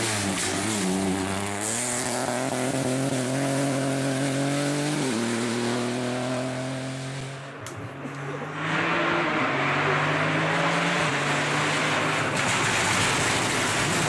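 Peugeot 208 Rally4's turbocharged three-cylinder engine revving hard as the rally car accelerates, its pitch climbing and dropping with gear changes. About eight seconds in, the sound cuts to another run, with the engine loud and steady as the car comes closer.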